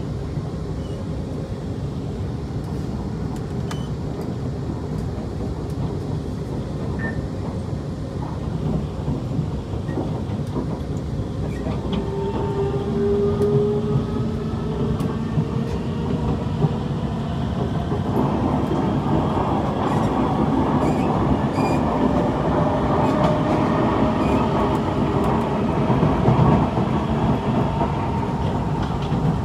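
Kawasaki C151 MRT train heard from inside the car: a steady wheel and track rumble, joined from about twelve seconds in by a rising motor whine that grows louder as the train gathers speed.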